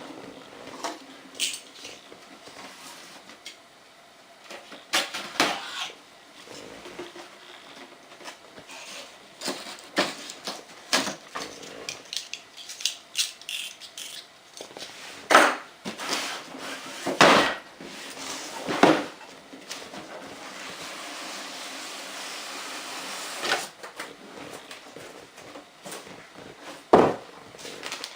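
A cardboard box being opened and its packaging handled by hand: irregular knocks, taps and scrapes of cardboard and packing, with a stretch of steady rustling past the middle.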